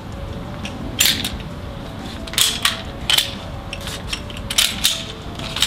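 Sharp plastic-and-metal clicks and clacks of the Secutor Gladius Glock 17 airsoft pistol being handled, in a series with several coming in quick pairs, as the CO2 magazine is swapped for a gas magazine.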